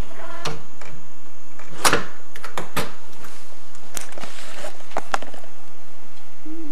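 A run of sharp, irregular knocks and clicks, the loudest about two seconds in, followed by a short low whine near the end.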